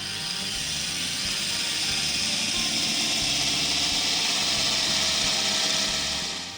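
Electric power tool running on wood, a steady whirring hiss that starts suddenly and fades out near the end.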